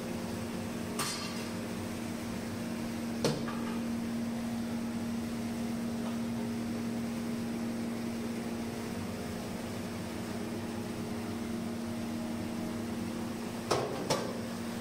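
Steady mechanical hum with a low drone, broken by sharp metallic clinks of kitchen pots or utensils: one about a second in, one after about three seconds, and two in quick succession near the end.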